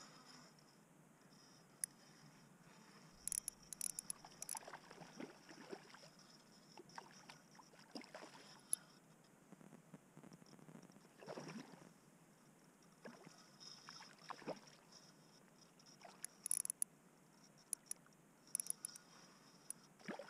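Quiet, faint water sloshing and soft swishes, with scattered small sharp clicks in clusters about three seconds in and again near the end.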